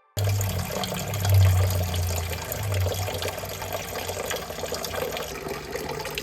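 Water running from a kitchen tap, a steady rushing with a low hum that is strongest in the first half and eases after about two and a half seconds.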